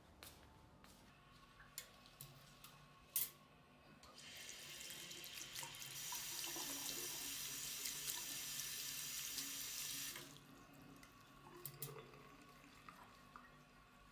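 Water from a bathroom sink tap running over an air plant held under the stream, starting about four seconds in and stopping about six seconds later. A few light clicks come before it, one of them sharp just before the water starts.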